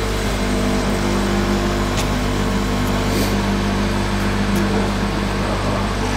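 Freight aerial tramway's machinery running with a steady, even hum, with a couple of light clicks.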